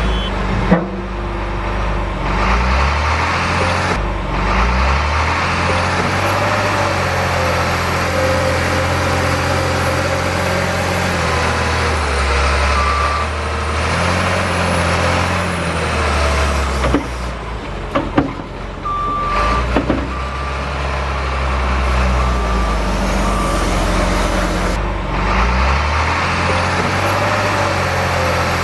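Scale RC construction machines working: a sound module plays a heavy diesel engine sound that steps up and down with the throttle, over the thin high whine of the electric drive motors, with a few short reversing beeps in the middle.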